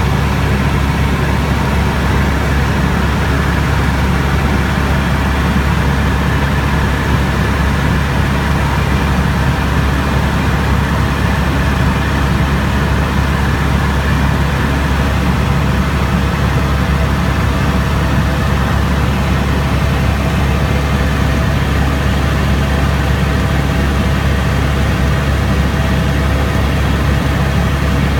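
Helicopter in cruising flight heard from inside the cabin: a steady low drone of the rotor and engine with a faint steady whine above it.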